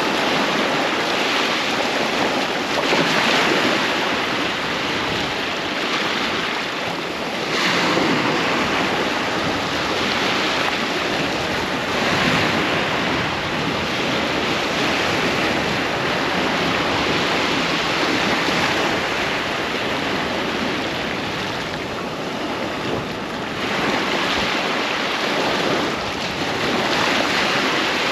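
Ocean surf breaking and washing onto a sandy beach in a continuous roar that swells with each wave every few seconds, with some wind on the microphone.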